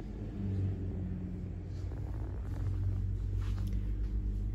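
A vehicle engine running with a steady low hum, under a low road rumble.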